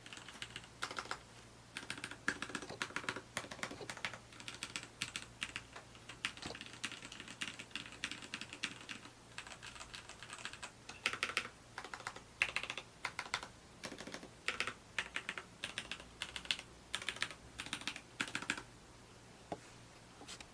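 Typing on a mechanical keyboard with lubricated Cherry MX Black linear switches (60 g). Keystrokes clack in quick irregular runs, broken by short pauses.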